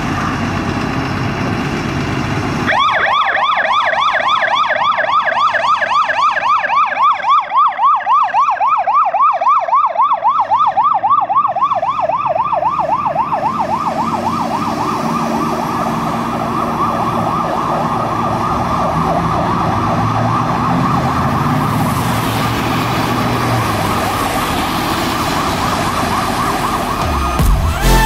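Hazmat fire truck's electronic siren, which starts about three seconds in on a fast yelp, rising and falling several times a second. Under it runs the truck's engine as it pulls out and drives past.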